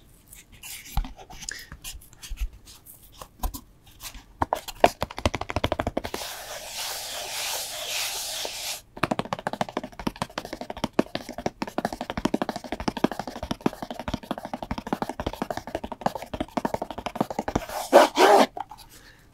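Gemstone bead bracelets handled close to the microphone, the beads clicking and clacking against each other in quick rattling runs, with a stretch of rubbing hiss partway through.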